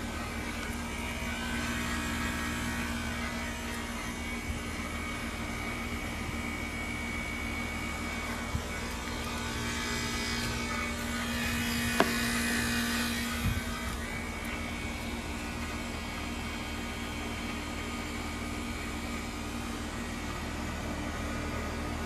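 Heat pump outdoor unit running with a steady hum and fan hiss. About halfway the hiss swells, there is a sharp click, and soon after a low thump as one steady tone in the hum stops.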